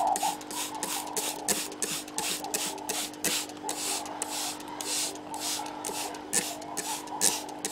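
Plastic trigger spray bottle squeezed over and over, misting water onto seed-starting soil in small pots. It makes a quick run of short hissing squirts, several a second.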